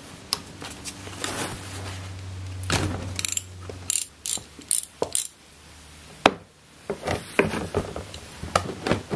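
Socket ratchet working the engine oil drain plug loose on a scooter: a run of sharp ratchet clicks about three to five seconds in, a sharp knock about six seconds in, and more clicks and knocks near the end.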